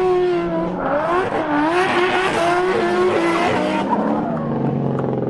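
Drift cars sliding in tandem: engines revving high, their pitch rising and falling as the throttle is worked, over tyres screeching.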